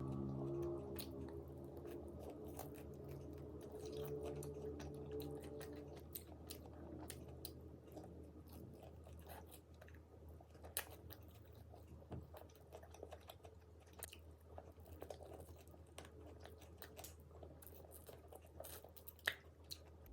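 A person chewing and biting crispy fried food close to the microphone, with moist crunches and many small crackles. During the first six seconds there is a low steady pitched tone under the chewing.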